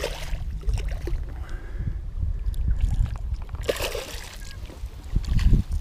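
Wind rumbling on the microphone, with water splashing and sloshing as a hooked striped bass is fought in at the bank.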